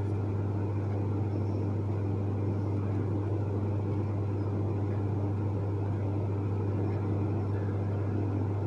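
A steady low hum with no other events, its level unchanging.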